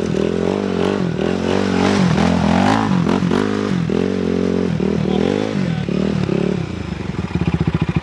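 Honda TRX400EX quad's single-cylinder four-stroke engine revving up and down again and again as it spins on masonry cutting-disc wheels, with grit grinding and clattering under the discs. About seven seconds in it drops to a steady, pulsing idle.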